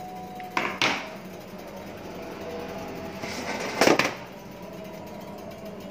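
Steel deck oven and its baking tray being handled: two short metal knocks about a second in, then a scrape ending in a louder metallic clank near four seconds, over the steady hum of the oven.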